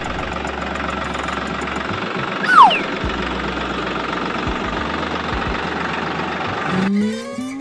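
Steady engine-like running noise for a miniature toy tractor, with a short falling whistle about two and a half seconds in. Near the end it cuts to a rising, siren-like tone.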